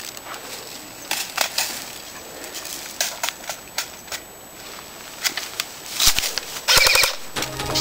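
Airsoft rifle shots: scattered single pops, then a short rapid full-auto burst about seven seconds in.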